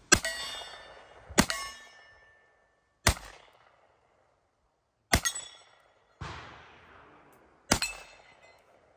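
A Hi-Point 4595 .45 ACP carbine fired about six times in slow, deliberate succession, each sharp report followed by a bright ringing clang that fades over about a second, as of a steel plate target being hit.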